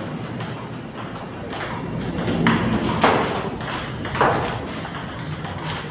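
Table tennis balls clicking rapidly off bats and the table during a multiball drill, about four or five sharp ticks a second. Three louder, longer sounds stand out in the middle stretch.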